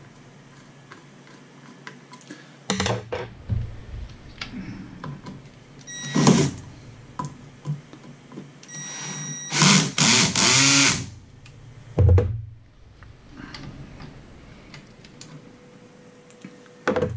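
Small cordless screwdriver driving screws in short runs, a brief one about six seconds in and a longer, louder one around ten seconds, with clicks and knocks of tools and parts being handled between them.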